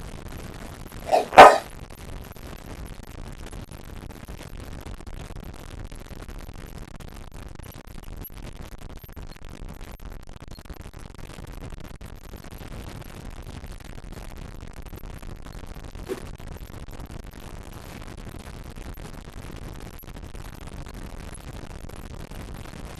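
Steady low background hiss, broken about a second in by one short, loud sound, with a faint blip much later.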